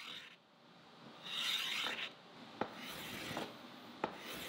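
Aluminum block rubbed back and forth by hand on abrasive grinding paper on a flat plate, a gritty scraping in slow strokes about a second long, with a few light clicks between strokes. The ends are being hand-finished after belt grinding.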